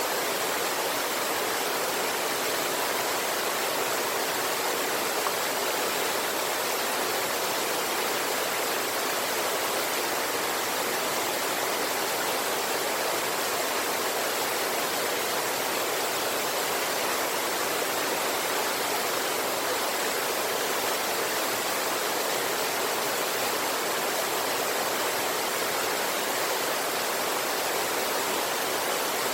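River water rushing over a waterfall and rocks: a steady, unbroken hiss that stays even throughout.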